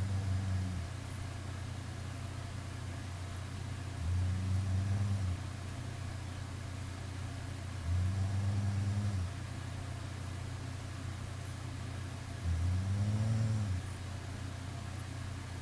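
Rhythmic snoring: a low snore whose pitch rises and falls slightly, lasting just over a second and coming about every four seconds, over a steady low hum.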